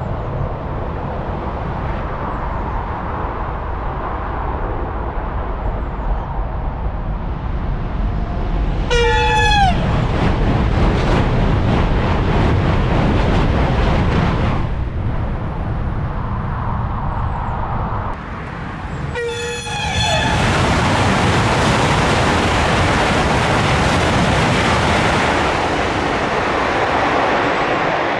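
Eurostar high-speed trains passing at speed, twice, about 9 and 19 seconds in. Each pass opens with a tone sweeping sharply down in pitch as the train goes by, then a loud rush of wheel and air noise lasting several seconds.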